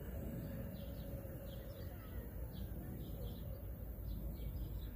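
A small bird chirping over and over, short high chirps about twice a second, over a low steady outdoor rumble.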